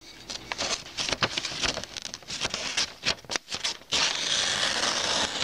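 A sheet of newspaper rustling and crinkling as it is held. About four seconds in, a knife blade slices through it with a steady rasping hiss: a paper-cutting test of a freshly sharpened edge.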